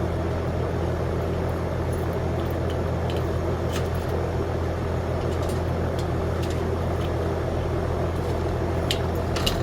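A steady low mechanical hum, like an idling engine, with a few faint clicks about four seconds in and near the end.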